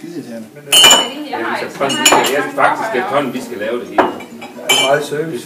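Crockery clinking in a staff room: cups, a glass and coffee thermoses knocking against each other and the table, with a handful of sharp ringing clinks. Low talk runs underneath.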